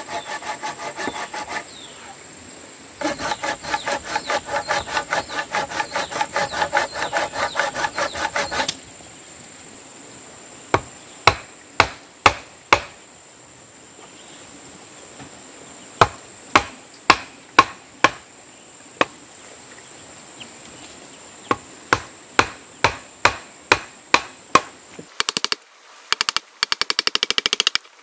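Hand saw cutting across a square timber beam in quick back-and-forth strokes that stop about nine seconds in. Then a wooden mallet strikes a chisel to cut a notch in the beam, single knocks in small groups, turning into rapid knocking near the end.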